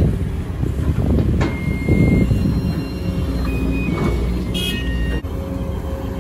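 Sumitomo SH210 hydraulic excavator's diesel engine running under load, with dirt and rock spilling from the bucket into a dump truck bed. Several short high-pitched squeaks or beeps sound over the rumble.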